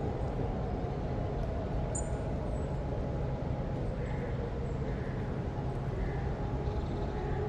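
Distant electronic civil-defence sirens sounding over one another, faint steady tones with one slowly falling in pitch, over a constant low rumble.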